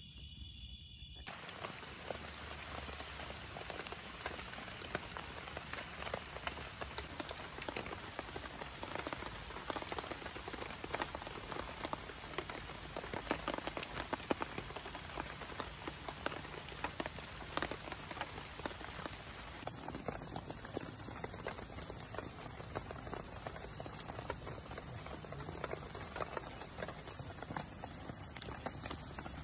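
Wood campfire crackling steadily, with many small sharp pops and ticks.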